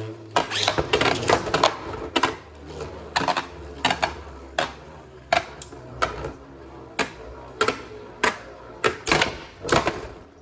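Two Beyblade Burst spinning tops battling in a plastic stadium: irregular sharp plastic clacks as they hit each other and the stadium wall, sometimes several in quick succession, sometimes a second apart.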